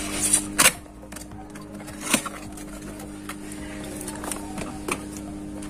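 Cardboard packaging being handled and unpacked by hand: a rustle at the start, then a few sharp taps and clicks spaced a second or two apart.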